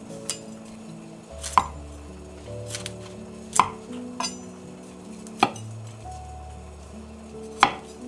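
Kitchen knife cutting broccoli florets and striking a wooden cutting board: four sharp chops about two seconds apart, with a few lighter taps between. Soft background music plays under them.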